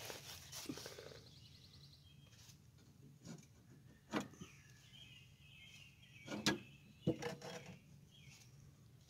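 A few sharp knocks and faint clinks of hands working a new blade belt onto a riding mower's deck pulleys and guides, the loudest about six and a half and seven seconds in, with birds chirping.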